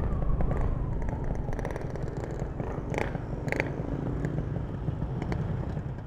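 Yamaha RX-King's ported single-cylinder two-stroke engine running at low revs, a steady low rumble with a few sharp clicks, dropping off near the end.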